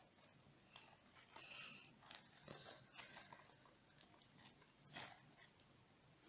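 Faint sticky clicks and squelches of a fluffy shaving-foam slime being kneaded and pulled by hand, with small suction pops as the fingers come away from it. There is a short rustling burst about a second and a half in.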